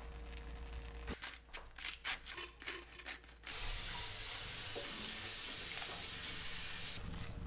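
Quinoa and chickpeas being stirred in a frying pan, a run of quick scrapes and taps, then a steady frying sizzle that runs for about three seconds and cuts off abruptly near the end.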